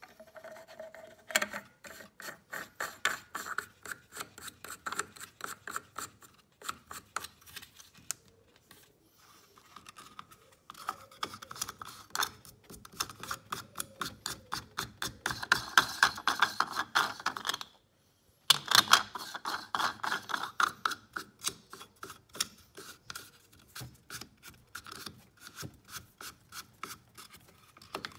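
Plastic coolant expansion tank cap on a BMW B58, sealed by O-rings in its filler neck, being twisted back and forth by hand: rapid rubbing, rasping strokes several a second, with short pauses.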